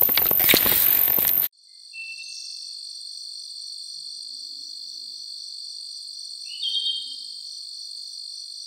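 About a second and a half of rustling, clicking handling noise that cuts off abruptly. Then a steady, high-pitched chorus of chirping crickets, with one short rising chirp about seven seconds in.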